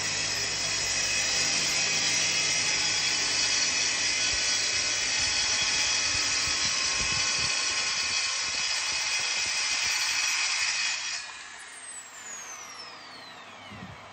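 Dewalt plunge track saw running at full speed as it cuts along a guide rail through an MDF board, with a steady high whine over the cutting noise. About eleven seconds in the trigger is released and the blade winds down with a falling whine, while a quieter steady hum, the dust extractor, carries on underneath.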